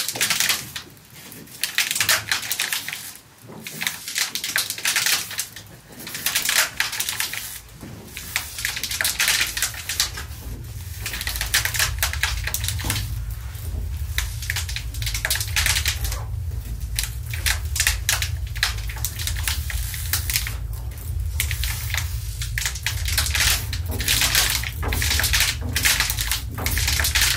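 Plastic bottles crackling and crunching as they are squeezed between the rollers of a historic laundry mangle, in irregular bursts. From about nine seconds in, a low steady hum joins and holds under the crackling.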